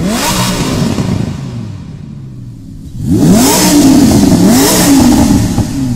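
A Lamborghini sports car engine revving. It gives a short rising rev at the start that dies away, then about three seconds in it accelerates hard, the pitch climbing and dropping back with each of several quick upshifts.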